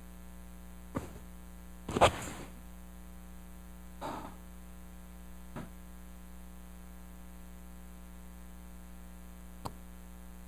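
Steady electrical mains hum, with a few short, soft noises on top; the loudest comes about two seconds in.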